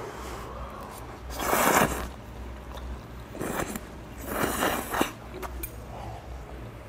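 A man slurping thick udon noodles into his mouth: three noisy slurps, with a short sharp smack at the end of the last.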